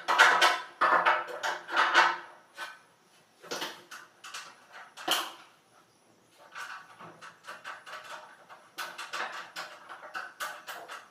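Hard metal parts clattering and clinking as they are handled, in irregular bunches of knocks, loudest in the first couple of seconds and again midway, lighter clicks later.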